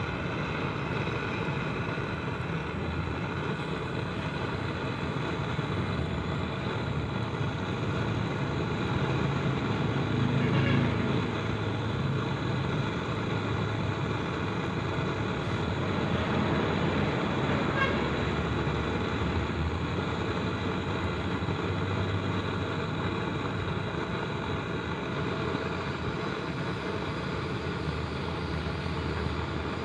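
Gas torch burner running with a steady flame roar, heating an alternator rectifier plate to melt solder onto its diode terminals.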